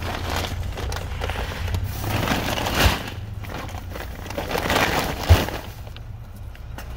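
Plastic grocery bags and snack packets rustling and crinkling as groceries are loaded into a car's cargo area, with two knocks of items set down, about three and five seconds in, the second the louder. A low steady rumble runs underneath.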